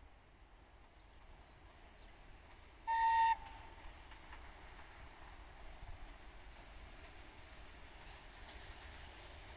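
A locomotive whistle sounds once, short and high-pitched, about three seconds in, over the faint low rumble of an approaching train. Small birds chirp faintly.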